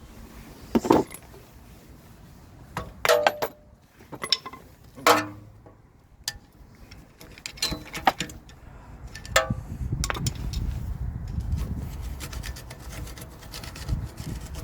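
Hand tools knocking against metal at a stuck ABS wheel speed sensor. There are about seven sharp clinks, each with a brief ring, spread over the first ten seconds, followed by a low, steady rubbing and scraping of metal.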